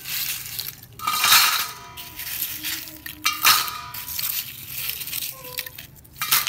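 Seashells clattering and clinking against each other and a stainless steel bowl as they are scooped and dropped in, the bowl ringing briefly after the heaviest drops, about a second in and again around three and a half seconds.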